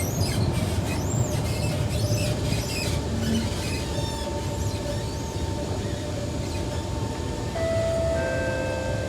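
Kawasaki C151 metro train running underground, with a constant low rumble of wheels on rail. High squeals rise and fall in the first few seconds. Steady whining tones follow, with more high tones joining near the end as the train slows for the station.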